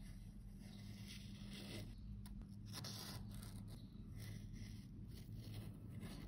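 Metal spatula scraping a shimmery cosmetic out of its metal pan in a compact, in short scraping strokes that come thickest around the middle, over a steady low hum.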